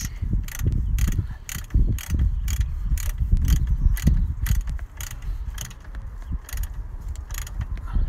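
Socket ratchet clicking in regular strokes, about two to three clicks a second, as it runs in a front brake caliper's slider (guide-pin) bolt, over a low rumble.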